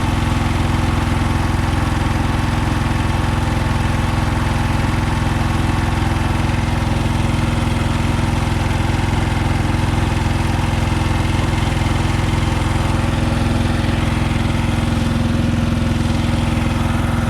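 Konma MT-S411D harvester (stationary rice thresher) running steadily under its engine, with a steady hum and a fast, even rattle. A rhythmic 'dandan' knock in the machine comes from the oscillating sieve plate, which the repairman puts down to that plate's normal running.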